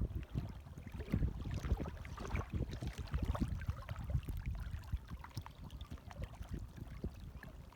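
Small waves lapping and splashing at the water's edge, an irregular run of little splashes over a low rumble, easing off after about five seconds.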